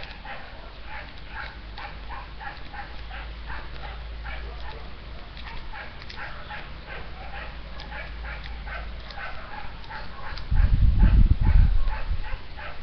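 A dog yapping over and over, about three short yaps a second. A loud, low rumble comes in near the end and lasts about a second and a half.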